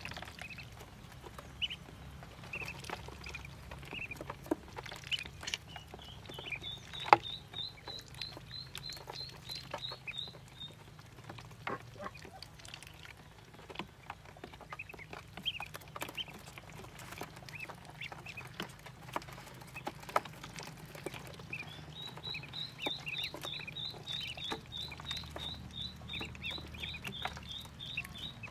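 Ducklings peeping continually in short high calls, with two fast runs of higher peeps at about four a second. Scattered light taps come from the birds at the plastic drinker, the sharpest about seven seconds in.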